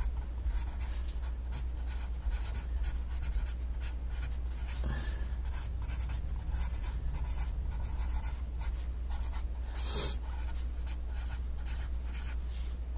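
Pencil writing on notebook paper: a continuous run of short scratchy strokes as words are written out, with one louder stroke about ten seconds in. A steady low hum sits underneath.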